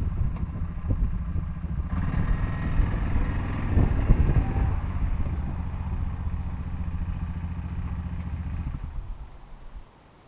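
Pickup truck engine running steadily, louder about two seconds in, then cutting out shortly before the end.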